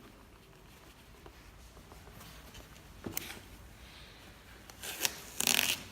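Hands handling decal backing paper and masking tape: a few short rustles and scrapes, the longest and loudest near the end.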